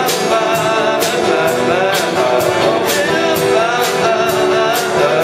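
Live band music with drums, guitar and keyboard, a cymbal or hi-hat struck about twice a second under a melodic line.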